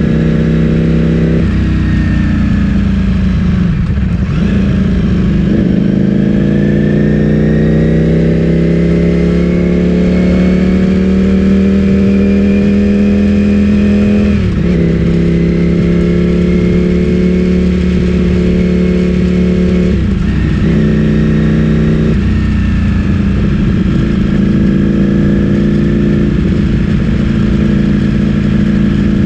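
Ducati Streetfighter V4 S's V4 engine through an Akrapovic full-system exhaust, ridden at road speed. The engine note rises as it pulls, drops sharply in pitch at several gear changes, and holds steady while cruising between them.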